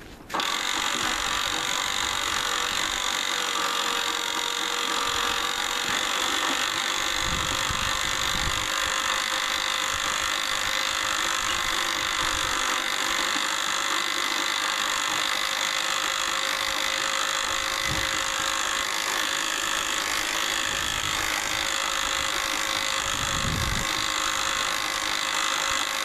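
Master Lock 2953AT 12-volt DC portable winch running steadily under load as it hauls a freewheeling lawn tractor on its cable: an even electric-motor whine with gear noise. The owner takes this noise to be normal for the winch.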